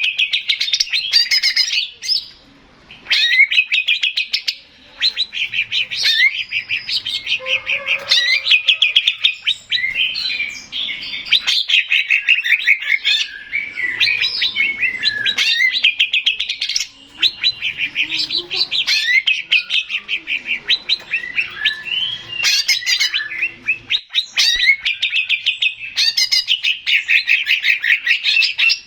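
Male green leafbird (cucak ijo) singing: long runs of fast, chattering notes, broken by a few short pauses.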